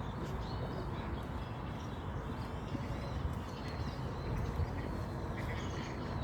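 Faint bird calls and chirps over a steady low rumble of outdoor background noise.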